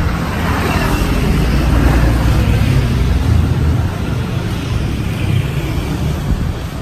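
Motor scooters passing close by on the street, their engine noise swelling to its loudest about two seconds in and then easing off over a steady low traffic rumble.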